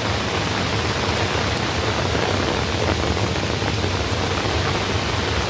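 Heavy tropical downpour: a steady, dense hiss of rain.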